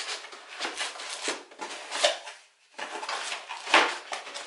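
Cardboard packaging handled in a box: irregular rustling, scraping and knocks as cardboard inserts and parts are shifted and lifted out, with a brief lull about two and a half seconds in and the loudest knock near the end.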